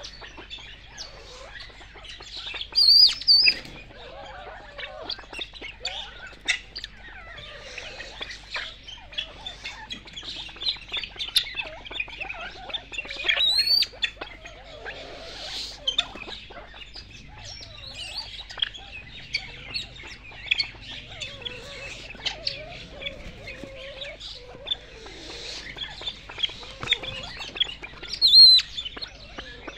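Birds chirping and calling in a pheasant aviary: many short chirps, with three louder calls rising in pitch, about 3 seconds in, around 13 seconds and near the end. Light taps and scratches on dry ground run underneath.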